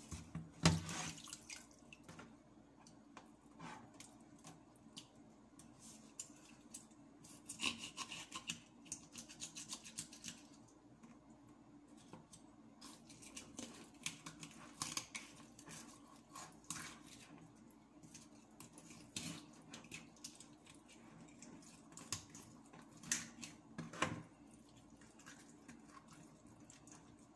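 Knife scraping and cutting a small fish on a cutting board while it is cleaned: scattered wet scrapes, squishes, clicks and taps. A louder wet splash comes right at the start as the fish is lifted from a bowl of bloody water, and a faint steady hum runs underneath.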